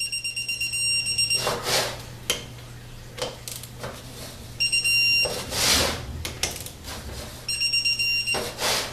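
Small cordless screwdriver whining in three short runs, about two seconds, half a second and a second long, with a fast pulsing of about six a second, as it drives the pump-cover bolts of a 4L60-E transmission pump. It only runs the bolts down without tightening them, so they still need torquing. Knocks and rattles of metal parts being handled come between the runs.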